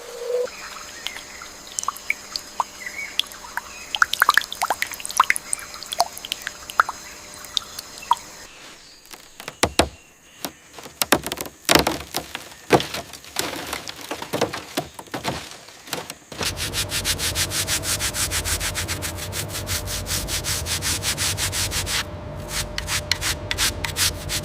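Hand work on rusted metal: scattered light taps and scrapes, then a run of sharp knocks from about 8 seconds in. From about 16 seconds a power sander or similar abrasive tool runs steadily with a fast, even rhythm.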